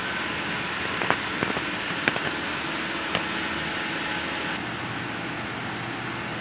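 EKO 175 electric nut roasting machine running, a steady rushing noise from its fan and conveyor, with a few sharp clicks in the first half.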